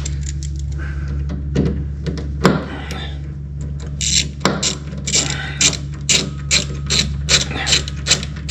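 Hand-tool work: a couple of separate knocks, then from about halfway a regular run of short, sharp scraping strokes, about two or three a second. A steady low hum runs underneath.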